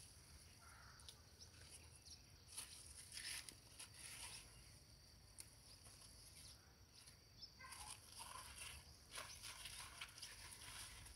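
Faint rural outdoor ambience: a steady high hiss with scattered light rustles and clicks, busier about a third of the way in and again after the middle.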